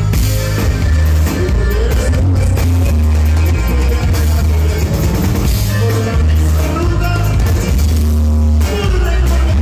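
Live band music played loud through a concert PA, with a heavy, steady bass line under the melody.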